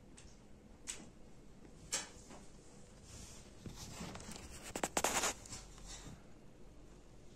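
A few light, isolated clicks and taps, then a short clattering rattle of rapid clicks about five seconds in, the loudest sound.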